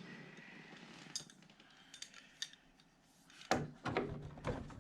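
Scattered small metallic clicks and clinks of hand tools and a metal door hinge being handled, then a quick run of knocks about three and a half seconds in.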